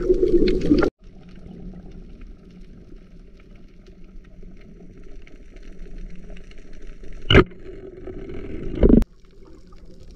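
Splashing as the camera goes under, then cut off abruptly about a second in, giving way to the muffled low rumble of underwater sound. Two loud sharp knocks come near the end, about a second and a half apart.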